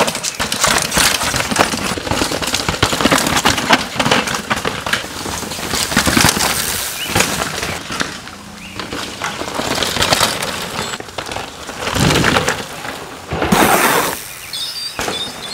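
Downhill mountain bikes riding a rocky, leaf-covered dirt trail: a dense crackle and clatter of tyres over stones, roots and dry leaves, with the bikes rattling. The sound swells twice near the end as riders pass close.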